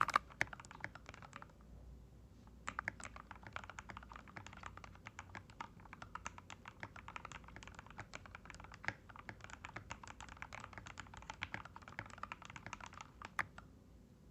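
Typing on an NJ68 mechanical keyboard fitted with lubed AKKO x TTC Demon linear box-stem switches, keys clacking in fast runs. The typing pauses about two seconds in and stops just before the end.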